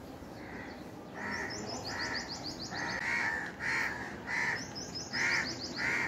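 Crows cawing over and over, one harsh call every half second to a second: a group of crows mobbing a kite. Twice a quick run of high, thin notes, about ten a second, sounds over the caws.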